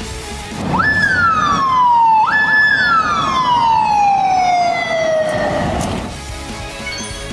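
Police motorcycle siren on a Honda NT1100P, sounding two wails about a second in. Each rises quickly to a high held note and then falls; the second falls slowly and dies away.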